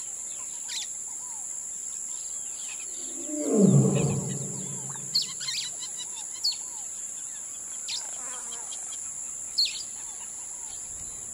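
Birds chirping and calling, with a steady high hiss behind them. About three and a half seconds in comes one loud, low animal call that falls in pitch.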